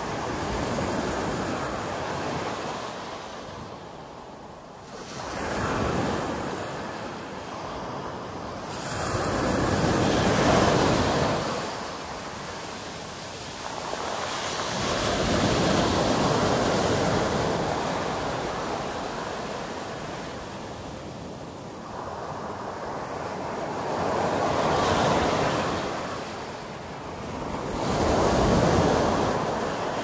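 Small sea waves breaking and washing up a pebble beach, the surf swelling and fading in a slow rhythm about every four to five seconds.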